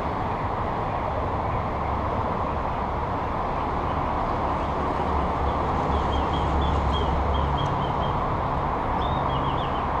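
Steady outdoor background rumble with a low hum that swells in the middle, and a bird chirping a quick run of short high notes about six seconds in and again near the end.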